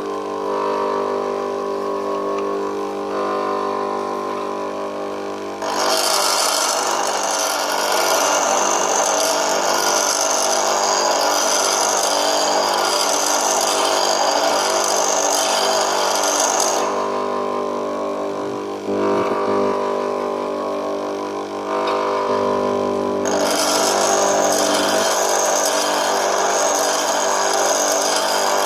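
Bench grinder motor running steadily while an HSS lathe tool bit is ground against the wheel. A long spell of grinding noise starts about six seconds in, stops for several seconds, and starts again in the last few seconds.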